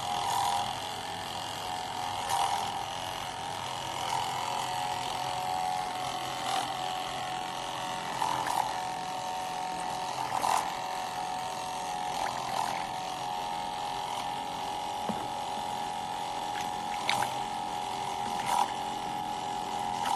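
Small electric pump on a flat ceramic membrane test rig running with a steady hum, with short louder pulses every two seconds or so.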